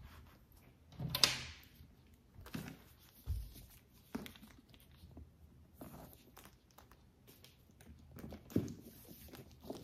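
Handling a Coach Millie satchel and its detachable leather shoulder strap: light rustling with scattered clicks and taps of the strap's metal clips and hardware, the sharpest about a second in.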